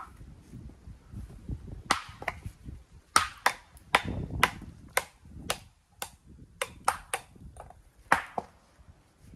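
Irregular sharp clacks of walling stone knocking on stone, about fifteen, some in quick runs a third of a second apart, each with a short ring.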